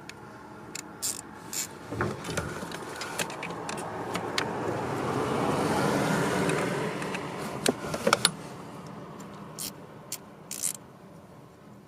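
An old hand ratchet clicking as it runs in the small screws that hold an eccentric shaft sensor: a fast run of clicks that builds for a few seconds and fades, a few sharper clicks about eight seconds in, then scattered single clicks.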